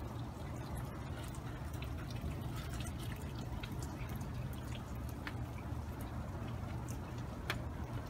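Quiet outdoor ambience in falling wet snow: a steady low rumble with scattered faint ticks.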